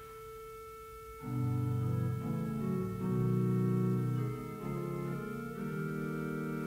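Organ playing a toccata: a soft held high chord, then about a second in, loud full chords come in low and in the middle range, changing roughly every second.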